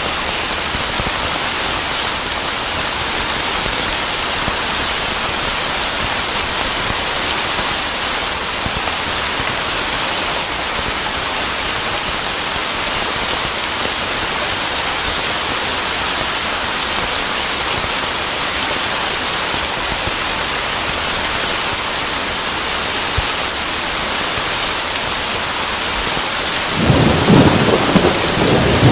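Steady heavy rain hissing. Near the end a rolling rumble of thunder starts.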